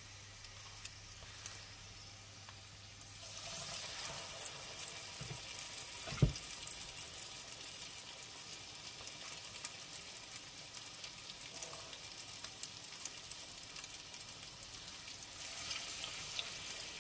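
Sunflower oil sizzling around salt-cod fritters (buñuelos de bacalao) frying in a pan. The sizzle swells sharply about three seconds in as a spoonful of batter goes into the hot oil, and again near the end as another is added. There is a single dull knock about six seconds in.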